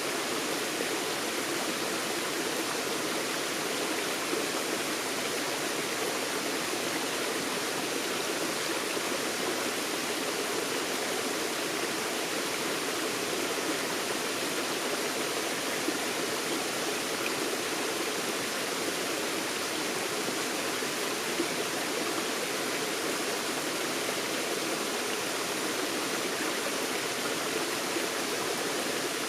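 Forest stream running over rocks: a steady, unbroken rush of flowing water.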